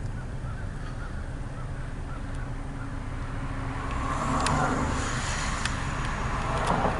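Steady low rumble of an idling car, heard from inside it. From about four seconds in, a louder rustling hiss joins it, with a few sharp clicks.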